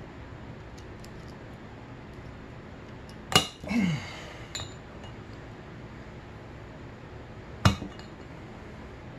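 Two sharp metallic clinks of a screwdriver and valve parts against a 2006 Honda CRF250R's aluminium cylinder head, about four seconds apart, while a valve spring is worked by hand without a valve spring compressor. The first clink is followed by a brief, louder sound lasting about half a second, and a few faint ticks come before it.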